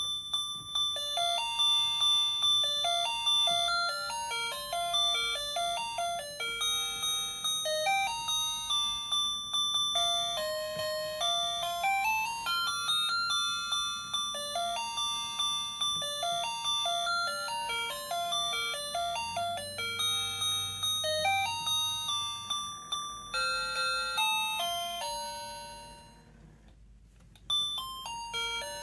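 Tinny electronic melody of chiming, bell-like notes from the sound chip of a Gemmy animated knitting teddy bear Christmas figure, set off by its button. The tune plays through, dies away near the end, and starts over after a short pause.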